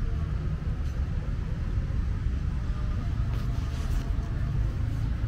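Outdoor park ambience: a steady low rumble with a light hiss above it and a few faint ticks.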